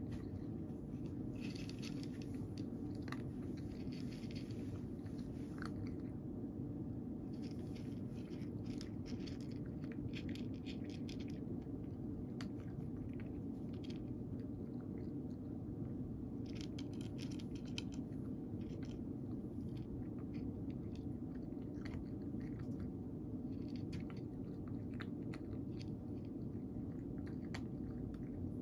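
A cat crunching dry kibble from a dish: irregular clusters of crisp crunches, over a steady low hum.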